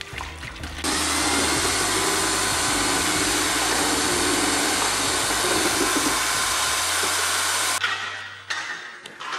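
Electric drill driving a paddle mixer in a bucket of two-part epoxy, running at a steady speed. It starts about a second in and stops sharply near the end.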